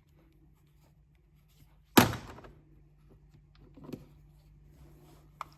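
Plastic remote control being handled and set down: one sharp knock about two seconds in, a softer knock near four seconds, and a small click near the end, over a faint steady hum.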